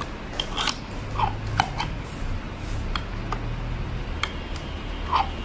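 Scattered small clicks and rattles of an SDS Plus drill bit being handled in the chuck of an Ingco rotary hammer, over a low steady hum.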